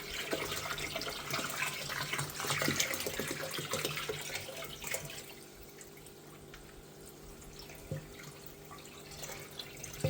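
Water running from a hose or tap into an aquarium to rinse the sand, splashing and trickling, with small drips and clicks. It drops to a quieter trickle about halfway through, with one light knock near the end.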